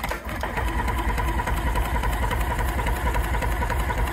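Outboard motor being cranked over by its electric starter with a spark plug out, turning at a steady, even rhythm for a compression-gauge reading.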